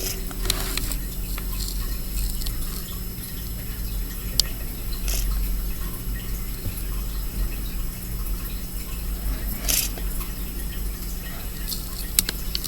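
Heavy storm rain with scattered drips and taps over a steady low rumble.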